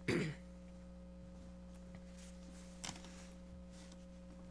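Steady electrical hum from the meeting room's microphone and sound system: a few fixed low tones that hold unchanged. A short burst of noise comes right at the start, and a fainter one about three seconds in.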